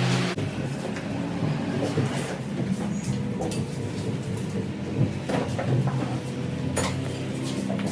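A steady mechanical hum with scattered clicks and knocks.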